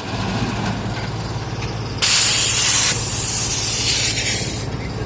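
A heavy engine running steadily, with a loud sudden hiss of released air starting about two seconds in, strongest for about a second and then tailing off near the end.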